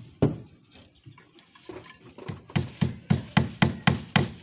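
A run of sharp, evenly spaced knocks, about four a second, starting about halfway through, like something being chopped or struck on wood.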